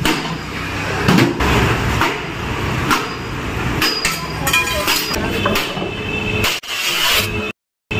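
A metal pipe striking the body of a Honda Activa scooter again and again, heavy blows about one a second, some with a brief metallic ring.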